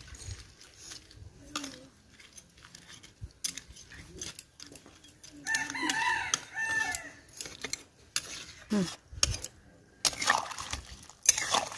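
A rooster crows once, about halfway through, a single call of roughly a second and a half. Around it, a metal spatula scrapes and knocks in a steel kadai of simmering crab curry.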